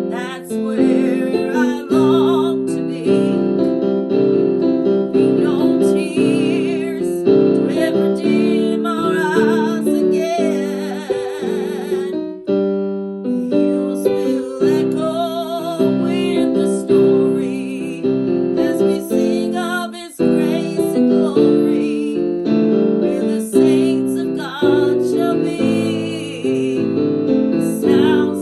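Piano music: a melody over chords, played continuously in a steady rhythm.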